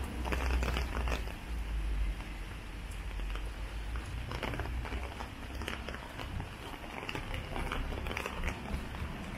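Rain falling on a city street: a steady hiss with scattered close drops tapping irregularly, over a constant low rumble.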